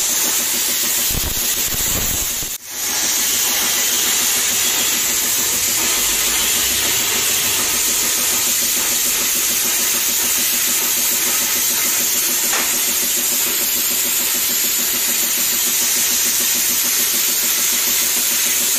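Air plasma cutter torch hissing steadily as it cuts through a flattened steel oil drum. The hiss cuts out briefly about two and a half seconds in, then resumes.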